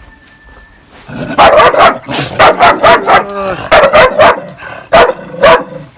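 A dog barking loudly in a rapid run of short, sharp barks starting about a second in, with a brief falling whine in the middle.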